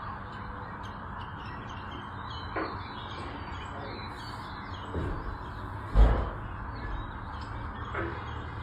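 Outdoor ambience of birds chirping and calling over a steady background hiss, with a few short, sharper calls and one loud low thump about six seconds in.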